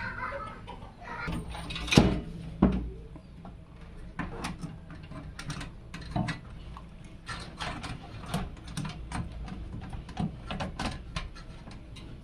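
Irregular clicks and knocks of hard parts being handled, as in assembling a PC case, with two loud knocks about two seconds in.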